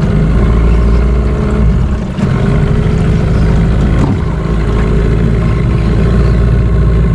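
Outboard motor running steadily, driving a small aluminium boat in toward a snagged fish.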